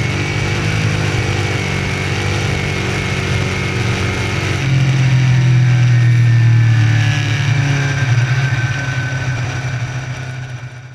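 Small-block V8 of a Troyer dirt modified race car running hard on the track, getting louder about halfway through, then dropping away near the end before the sound cuts off suddenly.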